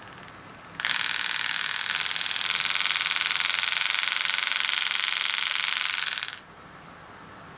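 Super EZ Graver pneumatic engraving handpiece firing: a rapid, steady hammering buzz that starts about a second in and cuts off abruptly a little after six seconds. The firing power is being set from a potentiometer foot pedal.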